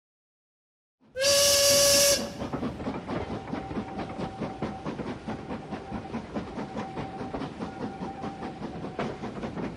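Steam locomotive sound: a steam whistle blows loudly for about a second, starting about a second in, then a steady, rapid chuffing rhythm of a running steam train carries on.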